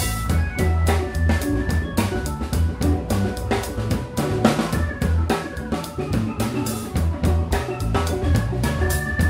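Live band playing an instrumental passage: a drum kit keeps a steady beat on bass drum, snare and cymbals under sustained electric guitar and keyboard notes and a heavy low bass line.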